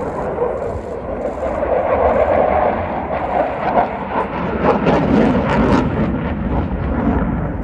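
Dassault Rafale's twin M88 jet engines passing overhead in a display: a loud rushing jet roar with a ragged crackle about halfway through, its tone dropping lower toward the end.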